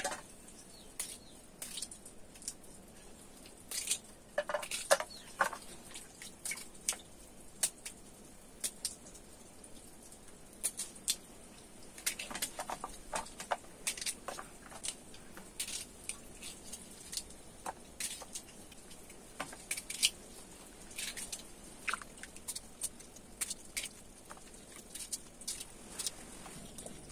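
Knife cutting small potatoes into wedges by hand: faint irregular clicks and taps of the blade through the potatoes and of the pieces dropping into a metal bowl, with small clusters of knocks a few times.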